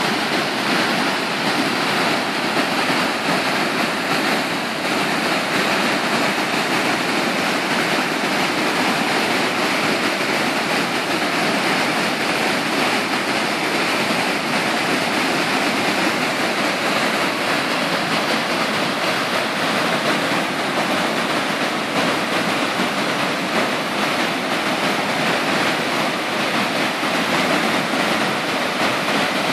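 Flood-swollen, muddy river water pouring over a low weir and churning below it in a loud, steady rush. This is the high flow after heavy rain.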